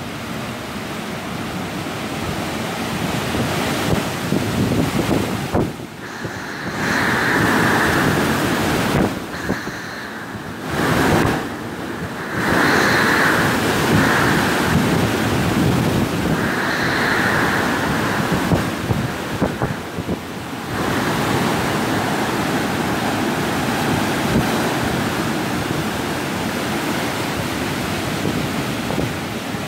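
Hurricane-force wind gusting through trees and power lines with driving rain, the gusts buffeting the phone's microphone. A high whistle rises and fades with several of the gusts.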